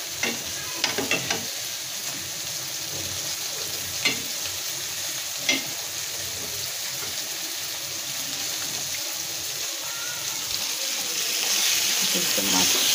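Food frying in oil with a steady sizzle, punctuated by a few sharp clinks of a metal spoon against the pot as dal with a fish head is stirred. Near the end the sizzle grows louder as marinated fish pieces fry in the pan.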